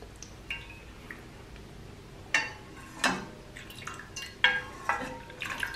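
Broth dripping and trickling from a stainless slotted spoon back into a wok, with several sharp, irregularly spaced knocks, some with a brief metallic ring.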